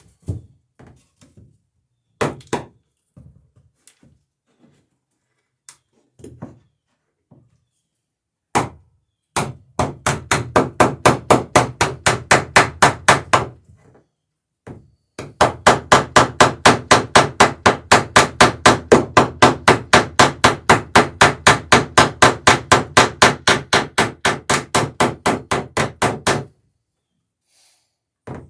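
A hammer peening over a rivet on a wooden dory's plank lap in a rapid, even run of sharp strikes, about six a second. It pauses about a second and a half and goes on for another ten seconds. Before the hammering there are a few seconds of scattered light knocks and clicks.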